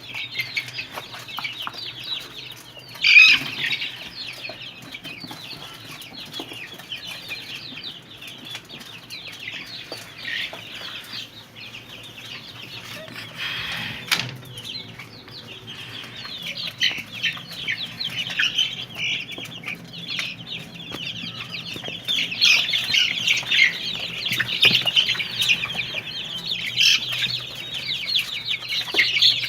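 A flock of 35-day-old Golden Misri chickens peeping and clucking continuously, many short high calls overlapping, with one sharp louder burst about three seconds in.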